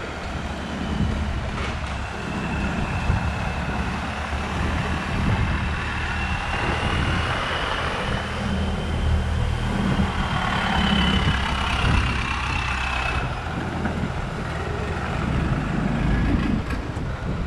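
A long-tail boat's engine running steadily as the boat passes along the canal, a deep rumble with a faint high whine that rises and falls and stops about two-thirds of the way through.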